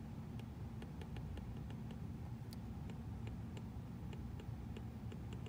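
Stylus tip tapping and scratching on a tablet's glass screen while handwriting: small irregular clicks, a few each second, over a steady low hum.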